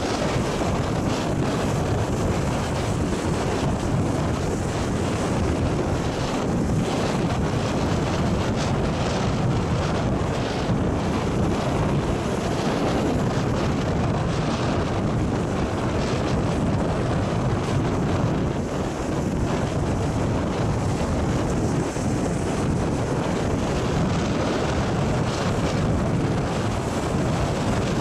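Storm waves breaking and churning against the rocks of a breakwater, with strong wind buffeting the microphone: a dense, steady rush of noise.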